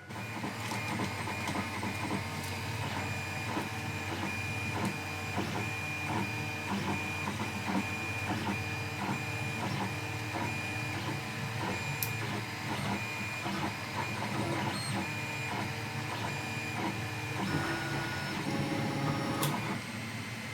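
Monoprice Maker Select Plus 3D printer printing: its stepper motors whine in short tones that jump from pitch to pitch every fraction of a second as the print head moves, over a steady low hum.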